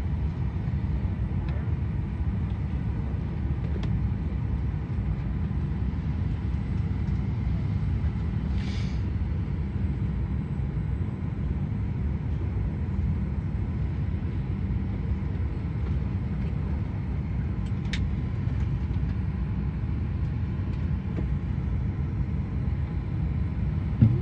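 Steady low rumble of airport and aircraft machinery heard from behind a window, unchanging throughout.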